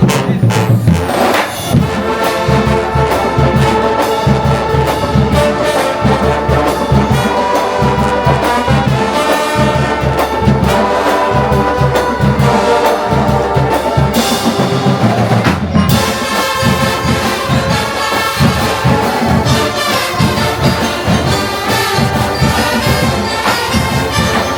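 Drum and bugle corps playing a pop medley: brass horns carrying the melody over a steady marching drum beat.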